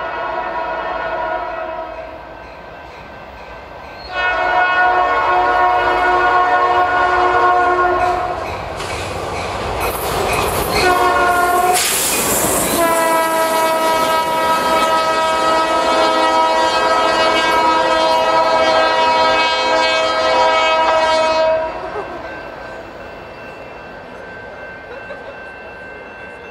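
Diesel locomotive air horn on a CN SD60 sounding long, long, short, long, the grade-crossing signal, as three locomotives running light pass at speed. The horn drops slightly in pitch as the lead unit goes by, with a loud rush of engine and wheel noise at the pass. After the horn stops near the end, a fainter rumble of the locomotives moving away remains.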